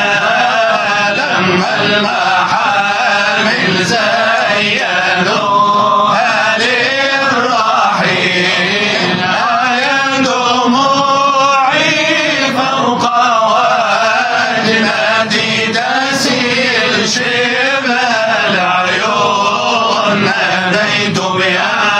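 Male Sufi munshids of the Shadhili order chanting a religious nasheed, their voices drawn out in long, wavering sung lines without a break.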